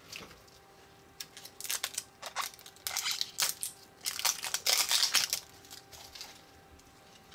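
Hands working at a plastic Surprizamals blind-ball toy capsule, its plastic crackling and crinkling in a quick run of clicks for about four seconds, then a few fainter ones.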